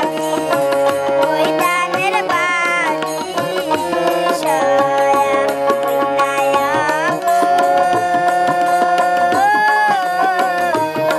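A girl singing a song, holding long notes that slide and waver, over drum beats and steady instrumental accompaniment.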